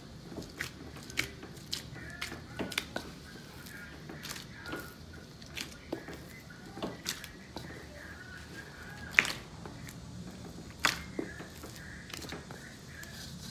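Soft paratha dough being kneaded by a gloved hand in a stainless steel bowl: irregular squelches, slaps and clicks as the dough is pressed and folded, with two sharper knocks against the bowl in the second half. The shaggy dough is being worked together.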